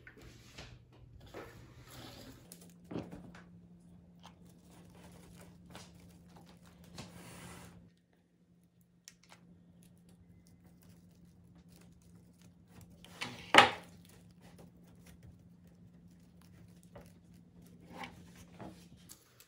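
Rustling and crinkling of artificial plastic fern and flower stems being handled and pushed into a grapevine wreath, with small clicks and one sharp knock about two-thirds of the way through.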